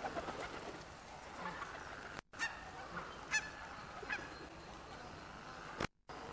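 Park birds calling, with a few short honk-like calls near the middle. The sound cuts out briefly about two seconds in and again near the end.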